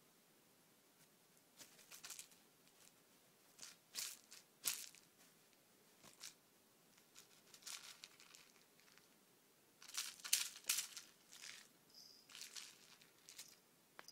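Irregular short rustles and scratches as a cat grabs, bites and kicks at a fluffy wand toy on a duvet, its claws catching the toy and the bedding; the busiest stretch comes about ten seconds in.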